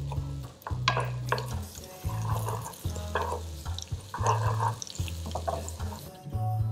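Sliced onions sizzling in a nonstick frying pan as a spatula stirs them, with clicks and scrapes of the spatula on the pan. Background music with a steady bass line runs underneath.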